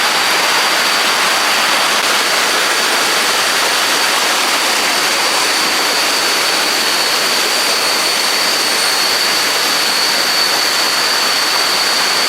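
Waterfall in rainy-season flow, a high volume of water falling down rocks in a steady, unbroken rush, with a thin steady high whine over it.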